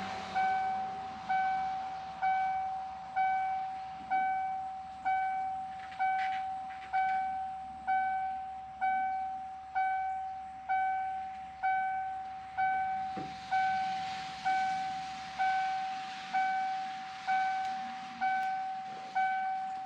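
A 1994 Ford F-150's warning chime dinging steadily, about once a second: each ding is a single clear tone that fades quickly.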